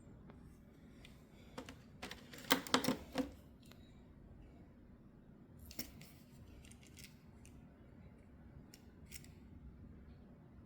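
Die-cast Hot Wheels cars and their plastic packaging being handled: scattered clicks and small rattles, busiest about two to three seconds in, then a few fainter ones.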